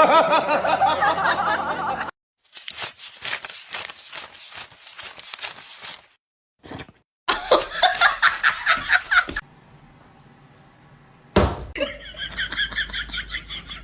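People laughing and snickering in several short clips cut one after another, with a sharp knock about eleven seconds in.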